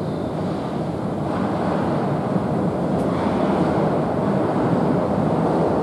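Keihan 2600-series train approaching through the tunnel: a steady rumble of wheels on rail that grows gradually louder as it nears the platform.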